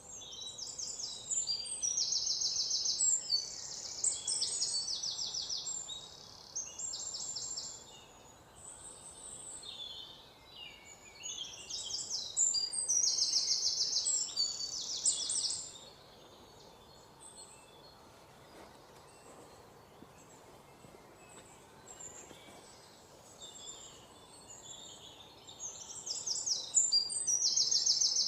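White-throated fantail singing: bouts of high, thin, rapidly repeated notes that step up and down in pitch, with a lull of several seconds in the second half.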